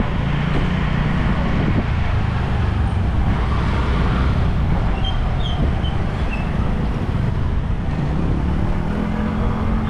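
Road traffic noise: vehicle engines running in slow, congested street traffic, with a steady low engine drone that settles on a slightly higher tone near the end.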